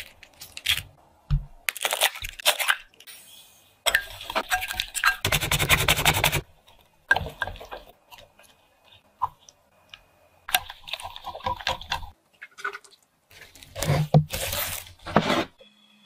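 Close-miked food-preparation sounds in short separate bursts: a mandarin orange's peel tearing as it is pulled apart near the start, then batter-making sounds in a glass mixing bowl as milk is poured into the beaten egg mixture.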